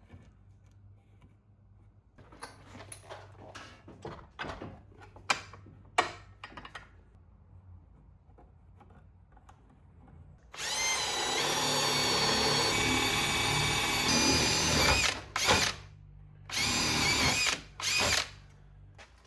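Handling clatter with a few sharp clicks, then a power drill running for about four seconds, its pitch rising as it spins up, followed by two shorter bursts of the drill.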